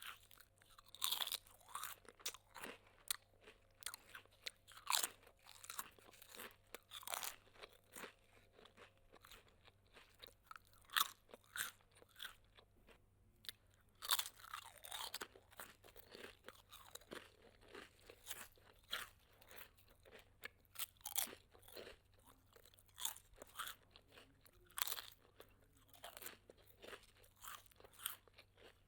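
Close-up chewing of crisp, crunchy food: irregular sharp crunches about one or two a second, with a short lull about halfway through.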